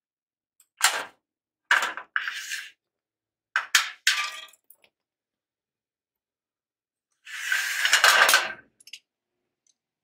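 Metal parts of a dismantled garage door opener rail clinking and clattering on concrete as they are handled: a few sharp clinks in the first half, then a longer, noisier clatter of about a second and a half near the end.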